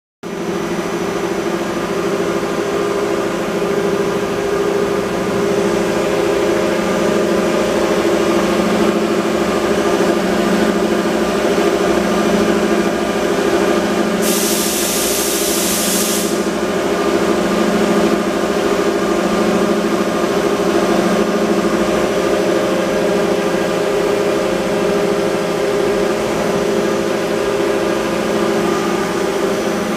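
Hwacheon Hi-Tech 200A CNC lathe running with its spindle and chuck turning: a steady hum with a whine. Midway there is a hiss lasting about two seconds.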